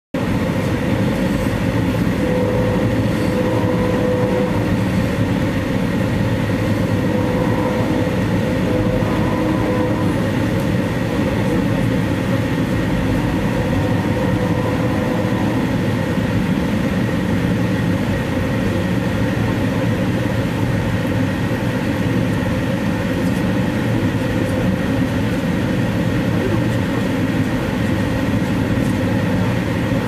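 An Amtrak passenger train running at speed, heard from inside its dome car: steady wheel-and-rail noise with a faint, steady high tone over it.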